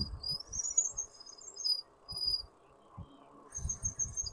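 E-bike brakes squealing in short high-pitched bursts, one rising in pitch and a fast stuttering one near the end, with wind rumbling on the microphone. The brakes are very squeaky.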